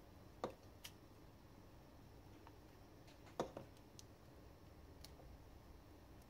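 Light clicks and taps from handling an opened Lava Iris 42 smartphone and a precision screwdriver. Two sharper clicks come about three seconds apart, with a few faint ticks between them.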